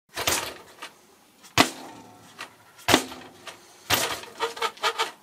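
Haiboxing 2995 RC desert truck pushed down onto a tabletop and let spring back on its stock coil-spring shocks, the plastic chassis and tyres clattering against the table. Four sharp knocks come about a second apart, then a quick string of lighter rattles near the end as it bounces.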